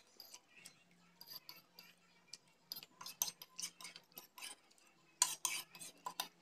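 Metal fork scraping and clicking against a plate while the last noodles are scooped up: faint, scattered scrapes and clinks, with a louder cluster near the end.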